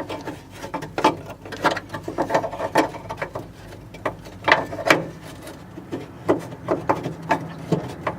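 Irregular clicks and clinks of hand tools on metal parts, someone working at a stubborn bolt.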